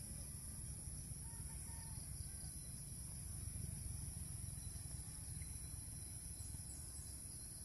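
Faint outdoor ambience: a steady high-pitched insect drone, with a low rumble underneath.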